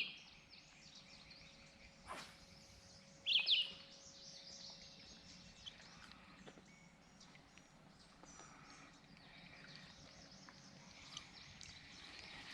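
Wild songbirds chirping and calling, with one louder, quickly warbling call about three and a half seconds in.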